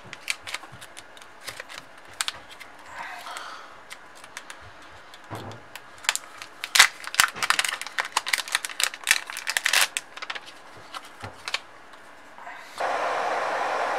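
Plastic packaging crinkling and crackling as it is handled: a metallised anti-static bag and a bag of parts, with irregular crackles that are densest in the middle. Near the end a steady hiss starts suddenly.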